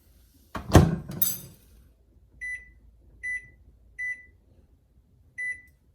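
Microwave oven door shut with a thump, followed by four short, high keypad beeps as the cooking time is entered.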